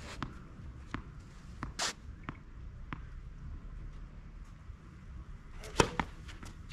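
Tennis ball bounced several times on a clay court before a serve, then the sharp pop of the racket striking the serve about six seconds in, the loudest sound, with a second knock just after it.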